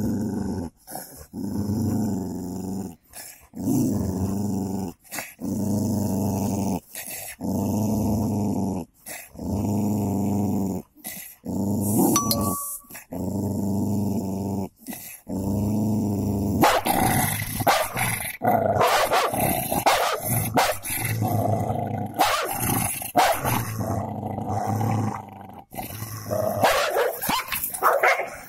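Cocker spaniel growling in a run of long, steady growls about a second each, with short breaks between. About halfway through, a golden Labrador joins and it turns into a busier scuffle of snarls and sharp barks as the two dogs fight.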